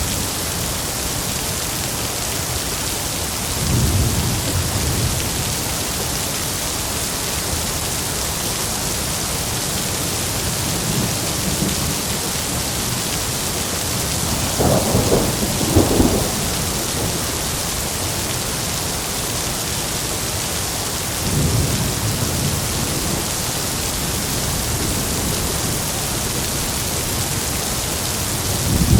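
Steady heavy rain with rolling thunder: low rumbles swell and fade every several seconds, and the loudest peal comes about halfway through.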